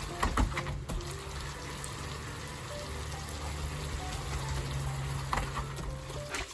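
Water sloshing and splashing in a backyard paddling pool, with a few sharper splashes about half a second in and again near the end, under light background music.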